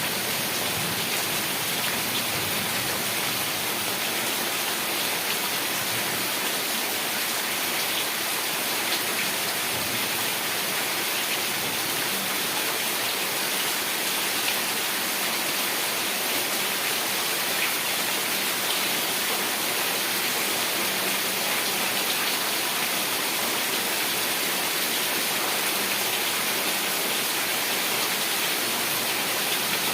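Heavy rain falling steadily, an even, unbroken hiss that holds at the same level throughout.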